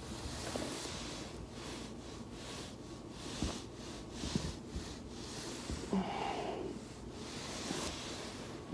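Back rolling over a foam roller with a steady rustle, a few short cracks of the spine's joints about three and a half to six seconds in, and a hard breath out through the nose near six seconds.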